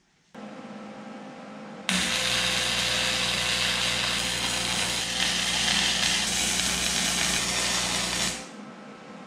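Wire-feed welder arc crackling steadily for about six and a half seconds over a low electrical hum. Before and after the arc a quieter steady hum runs.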